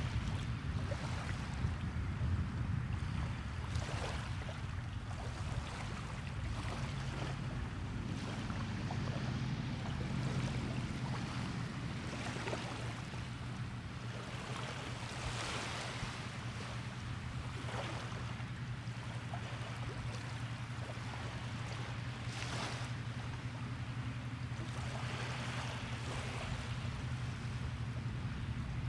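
Small waves washing and splashing on the shore every few seconds over a steady low rumble.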